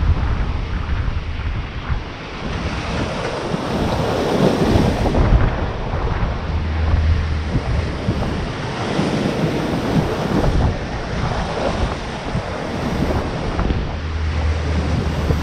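Wind buffeting the microphone over the rush and splash of seawater along the hull of a sailing yacht under way in open-ocean swell, the bow wave breaking in spray. The low wind rumble swells and fades in gusts.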